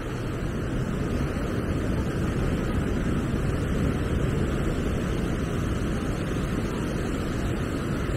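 Beach ambience: steady wind buffeting the microphone over the wash of surf.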